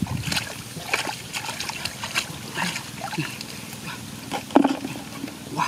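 Hands splashing and groping in shallow muddy water, with many small splashes and drips. About four and a half seconds in comes a louder splash as a basket of caught fish and water is tipped into a plastic bucket.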